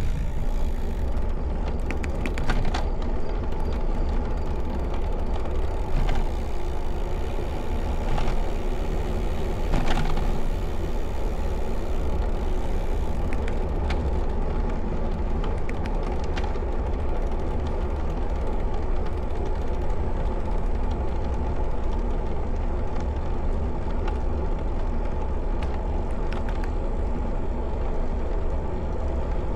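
Wind rushing over the microphone of a camera riding on a moving road bike, a steady low rumble mixed with tyre noise on the pavement, with a few short clicks and knocks along the way.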